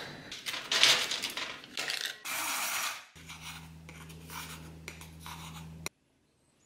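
A knife slicing through an orange on a wooden cutting board, a series of crisp cuts with a brief louder hiss about two and a half seconds in. Then a wooden spoon scrapes powdered dried orange out of a metal tin into a glass bowl, over a steady low hum. The sound cuts off suddenly about a second before the end.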